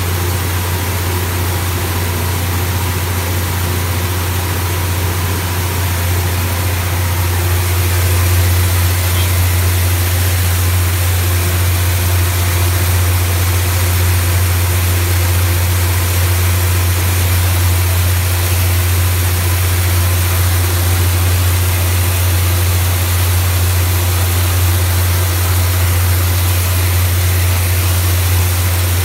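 Rice milling machine running with a steady low hum, together with the hiss of milled rice pouring from its outlet chute into a paper sack. The sound grows slightly louder about eight seconds in.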